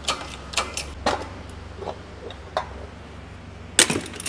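Scattered metal knocks and clicks from tools working a very tight front wheel hub bearing out of its housing, over a steady low hum. A quick cluster of sharper, louder clanks comes near the end.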